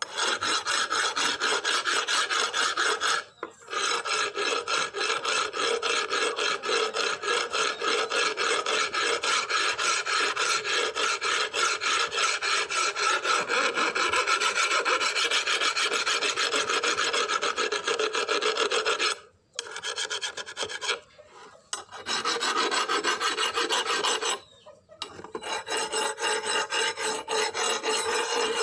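Rapid, repeated rasping strokes of a file or abrasive working a surface, with a brief pause a few seconds in and two longer pauses about two-thirds of the way through.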